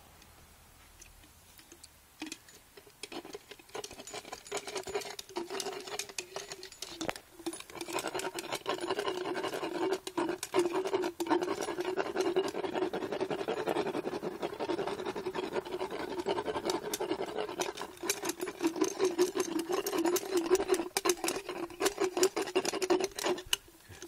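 Motorized equine dental float grinding down a horse's teeth: a steady motor whine with rasping and clicking against the teeth. It starts about two seconds in, gets louder a few seconds later, and stops abruptly near the end.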